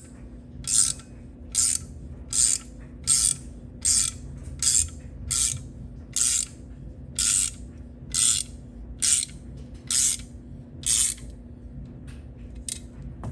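Ratchet wrench clicking in short, even strokes, about one and a half a second, winding the screw of a door-hinge spring compressor to squeeze the spring small. The strokes stop near the end.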